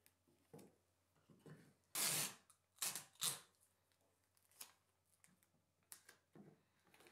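Clear adhesive tape being handled and laid onto a laser-cut balsa fuselage. There is one longer rasp about two seconds in and two short ones about a second later, with faint clicks and rubs from fingers on the tape and wood.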